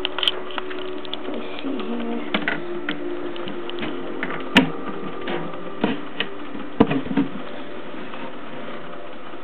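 Scattered sharp clicks and light knocks from handling, over a steady hum. The sharpest click comes about four and a half seconds in, with a small cluster around seven seconds.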